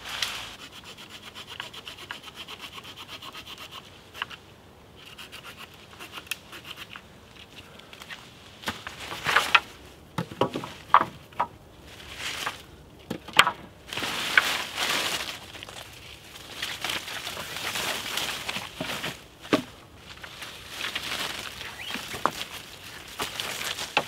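Rhythmic rasping for the first few seconds, then sharp twig snaps and the rustle and swish of leafy hazel branches being laid onto a raised pole bed as a springy mattress.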